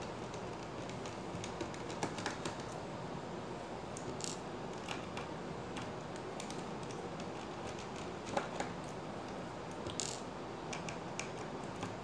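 Small clicks and light scrapes of a fine Phillips screwdriver working screws out of a laptop's hard-drive bracket, with two brief scrapes about 4 and 10 seconds in, over a steady background hiss.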